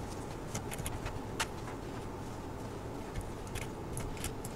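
Steady low room hum and hiss with a few short, sharp computer mouse clicks scattered through it.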